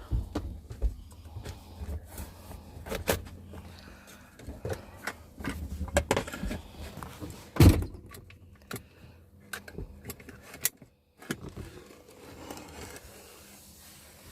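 Irregular clicks, knocks and rattles of hands and tools working on a van's floor, with one loud thump a little past halfway.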